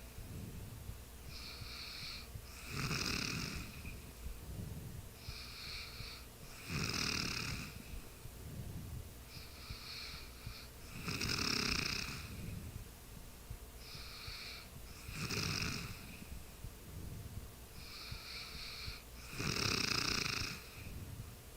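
A sleeping person snoring, one loud snore roughly every four seconds, five in all, each preceded by a softer breath.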